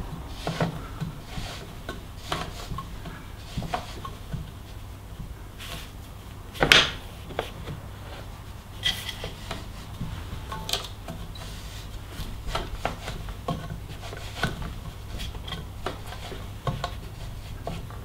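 Threaded bottom bracket press being turned by hand, pushing a BB86 press-fit bottom bracket through a carbon frame's shell: irregular small clicks, creaks and metal scraping, with one louder sharp click about seven seconds in. A low steady hum runs underneath.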